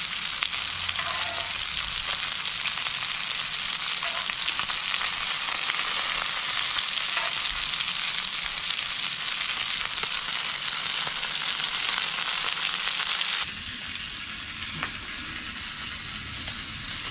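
Whole fish frying in oil on a hot barbecue flat plate: a dense, steady sizzle with fine crackling. About thirteen seconds in it drops suddenly to a quieter, duller sizzle.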